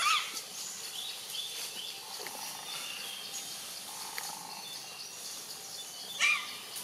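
Two short, high-pitched animal calls, one at the start and one about six seconds in, over a faint background of insect and bird chirping.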